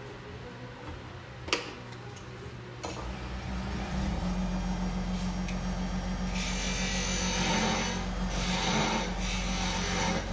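Wood lathe: a sharp click about a second and a half in, then the motor starts about three seconds in and runs with a steady hum. From about six seconds a dry scraping hiss sounds as the spinning wood is worked by hand.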